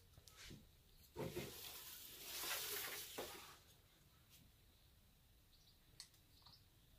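Soft rustling and scraping as the baking paper and metal pizza peel under a sourdough loaf are handled. It starts sharply about a second in and lasts about two seconds. A faint click comes at the start and another near the end.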